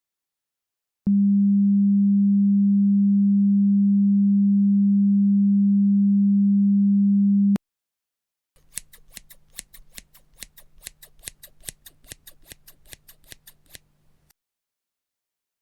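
A steady, low, pure electronic tone starts about a second in, holds for six and a half seconds and cuts off abruptly. After a second of silence comes a rapid run of sharp clicks, about five a second, for about five seconds, over a faint low hum.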